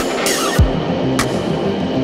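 Background music: an electronic track with a steady beat of sharp percussion hits over sustained bass notes, with a deep falling bass sweep about half a second in.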